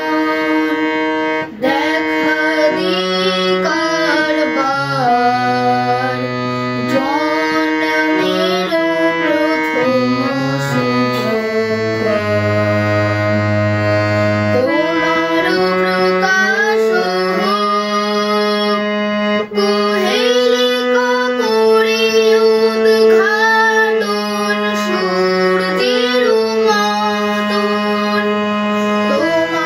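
Harmonium playing an instrumental melody over held chords, with the notes changing every second or so and deeper bass notes held at times.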